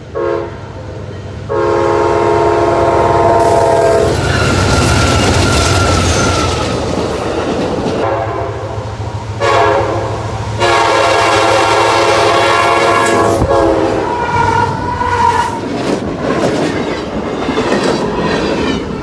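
Locomotive air horn sounding two long chord blasts, the first about a second and a half in and the second about ten seconds in, over the rumble and clickety-clack of freight trains passing close by.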